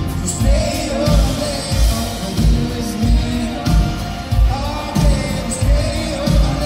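Live country-pop song: a man singing lead over acoustic guitar and a band, with a steady kick-drum beat a bit under two beats a second.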